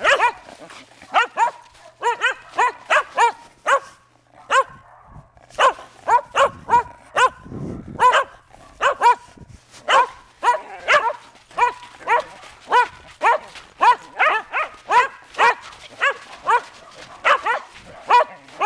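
A Shetland sheepdog barking over and over in play: short, high, sharp barks about two or three a second, with a brief pause about four seconds in.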